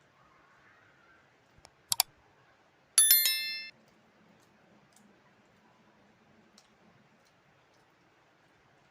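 Tableware clinking during a meal: a few sharp clicks, then about three seconds in a single metallic clink that rings and fades within a second.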